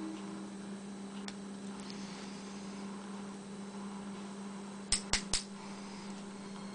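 Lock picking on a padlock: a faint click early, then three sharp clicks in quick succession about five seconds in, over a steady electrical hum.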